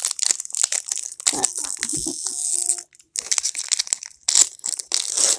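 Pokémon trading-card booster pack wrapper crinkling and being torn open by hand, in quick irregular crackles with a brief pause about three seconds in.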